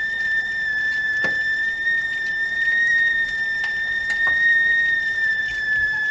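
Stovetop tea kettle whistling at the boil: one steady, high-pitched whistle that holds nearly level in pitch, with a few faint clicks scattered through it.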